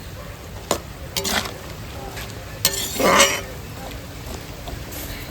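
A metal utensil clinking and scraping against a cooking pot while stirring, in a few short bursts; the loudest comes about three seconds in.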